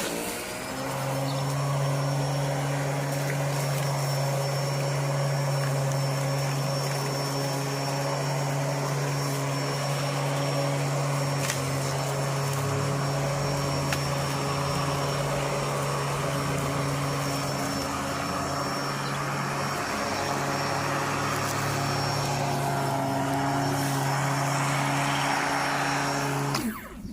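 Litheli battery-powered electric lawnmower running, a steady motor hum with a thin high whine, that cuts off suddenly near the end as the motor is stopped.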